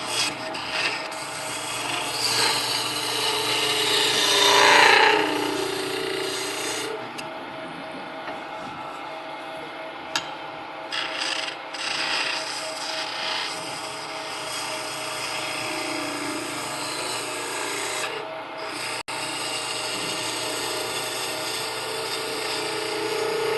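Wood lathe spinning a wooden blank while a half-inch bowl gouge cuts it, rolling the end of a cylinder over toward a sphere. The cutting is loudest about two to five seconds in, where it falls in pitch, then goes on more lightly with a few short breaks.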